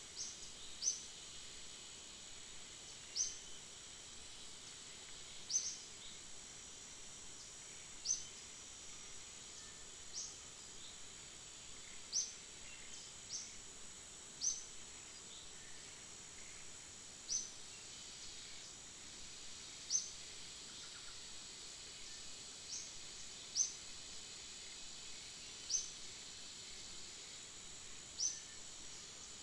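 Steady high-pitched insect drone with a short, sharp, rising chirp repeating about every two seconds.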